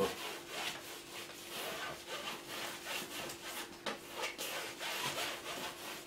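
Large palette knife scraping and spreading oil paint across a stretched canvas in many quick, short strokes.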